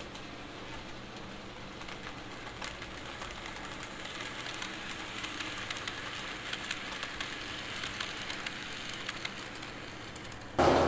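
Model train of silver passenger cars running along the layout track: a steady running whirr with many small clicks, growing louder as it passes close by and easing off as it moves away. Near the end the sound cuts suddenly to something much louder.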